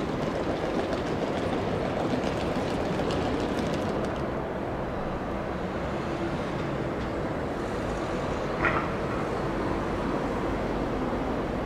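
Boeing 787-9 Dreamliner's jet engines running as the airliner slows on the runway after touchdown: a steady, distant rushing rumble that eases slightly about four seconds in. A brief sharp chirp about nine seconds in.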